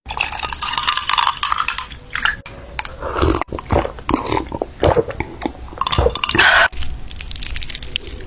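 Eating sounds: cutlery clinking against dishes and chewing, with many short sharp clicks and irregular bursts.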